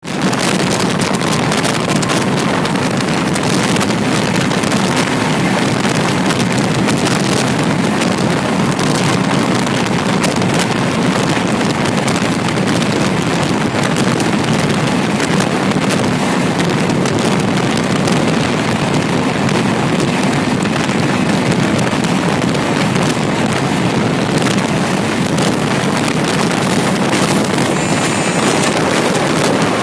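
Steady rush of wind and wheel-on-rail noise through the open window of a passenger coach running at about 104 km/h, with many small clicks over the running noise and wind buffeting the microphone.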